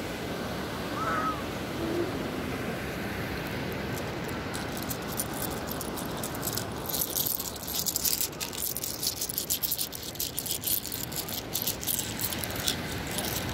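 Handful of seashells clinking and rattling together in a hand, a quick run of sharp clicks starting about four seconds in, over a steady background hiss.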